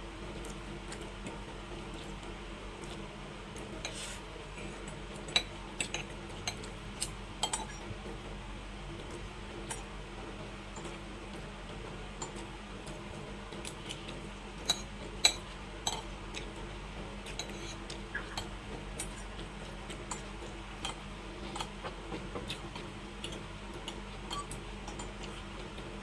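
Cutlery clinking and scraping against a plate while eating, in scattered sharp clicks at an irregular pace, with a couple of louder clinks about halfway through, over a steady low hum.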